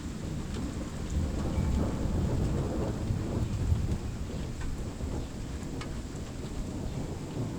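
Thunder rumbling low and continuously with rain falling, a few faint drop ticks above the rumble.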